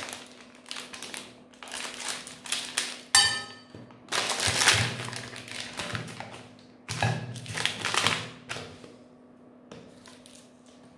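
Plastic ice cream bar wrappers crinkling as they are torn open and handled, in several bursts. About three seconds in, one sharp ringing clink against the glass plate.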